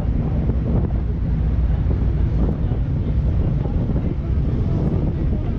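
Wind rushing over the microphone of a moving classic car, over a steady low rumble of its engine and tyres on the road.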